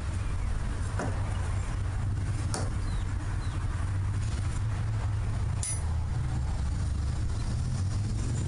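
Steady low rumble with three sharp clicks about a second, two and a half seconds and nearly six seconds in; the last rings briefly like metal striking metal.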